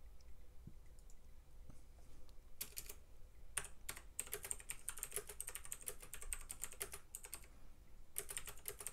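Typing on a computer keyboard: a quick run of key clicks starting about two and a half seconds in, then a brief pause and a last short burst near the end.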